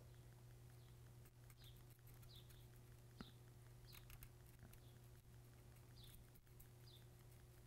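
Near silence: a faint steady electrical hum, with faint high chirps every second or so, light crackling, and a single small click about three seconds in.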